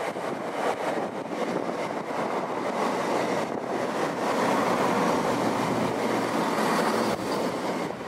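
A train passing, a steady rushing noise of wheels on rail that grows louder midway and falls away near the end.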